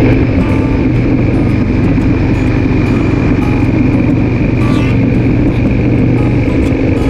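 Motorcycle cruising at highway speed, heard from a camera on the moving bike: a steady engine drone with wind noise over it.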